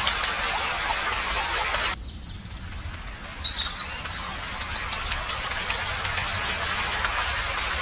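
A series of short, high bird chirps and tweets from about three to five and a half seconds in. A steady hiss cuts off abruptly about two seconds in and fades back in after the chirps.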